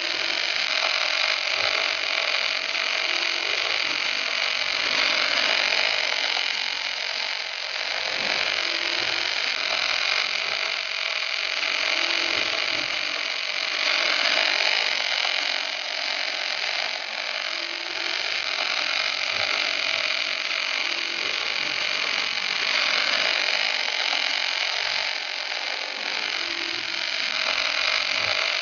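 Gas-shielded (MIG/MAG) welding arc burning steadily at the torch of a portable welding tractor: a continuous hiss.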